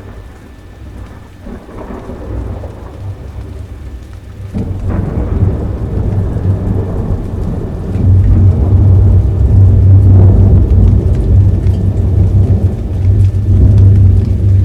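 Thunderstorm sound effect: rain with rolling thunder. A sharp thunderclap comes about four and a half seconds in, and a heavy, loud rumble builds from about eight seconds in.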